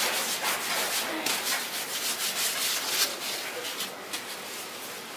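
Plastic-gloved hands rubbing and sliding twisted doughnut dough across a flour-dusted wooden board: a dry brushing in irregular strokes, a little quieter from about four seconds in.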